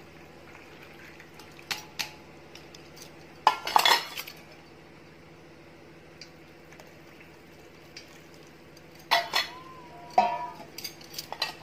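Kitchen utensils and dishes clinking now and then, with a burst of clatter about three and a half seconds in and again near the end, over a steady low hum.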